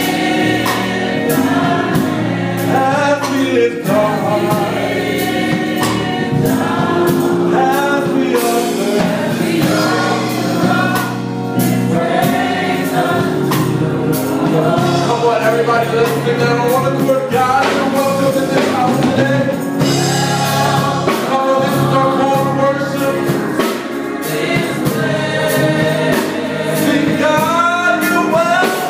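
Gospel choir singing live with band accompaniment, several voices in harmony over sustained bass notes and a steady beat.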